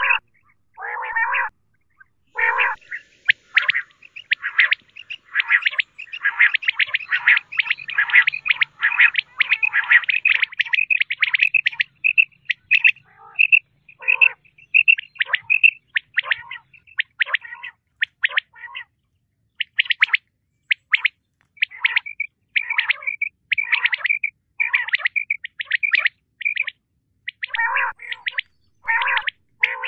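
Common quail calling: fast runs of short, high chirping notes, crowded and overlapping, with lower notes mixed in near the start and near the end. There is a brief pause about two seconds in, and the calls thin out for a couple of seconds past the middle.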